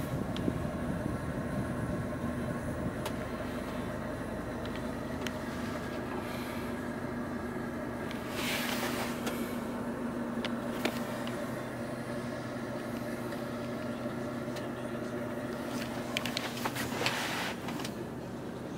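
Steady hum of a Mercedes-Benz E200 running at idle with its air conditioning on, heard from inside the cabin. A few light clicks and two brief rushes of noise, about 8 s in and near the end.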